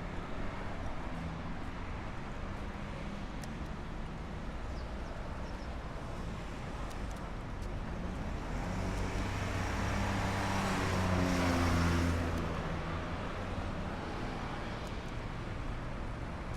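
Street traffic with one motor vehicle passing: its engine rises over several seconds, is loudest a little past the middle, then fades. A few faint clicks sound now and then.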